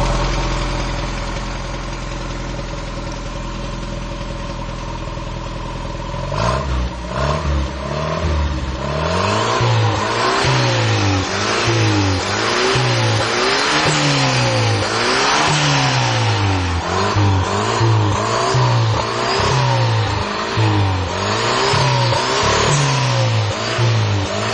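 Chevrolet Chevette engine idling steadily, then from about six seconds in revved over and over, the throttle blipped roughly once a second so the pitch rises and falls in a steady rhythm.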